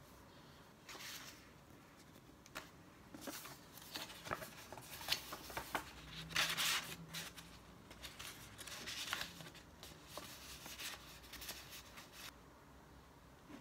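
Sheets of writing paper and card rustling and crinkling as they are handled, in irregular bursts. The loudest rustle comes about six and a half seconds in, and the rustling stops about a second before the end.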